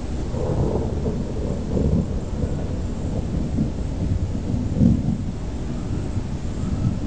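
Thunder rumbling in a lightning storm, an irregular low rumble that swells and fades, loudest a little under five seconds in, over a faint steady hiss.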